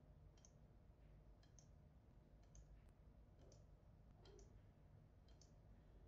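Faint computer mouse clicks, about one a second, each a quick press and release, over a low steady hum.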